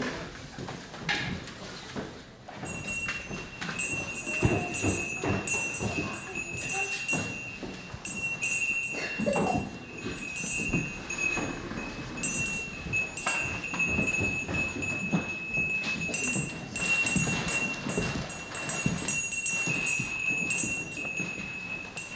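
A high, steady ringing tone with a chime-like shimmer, starting about two and a half seconds in and held, wavering slightly, to the end, over scattered knocks and thumps.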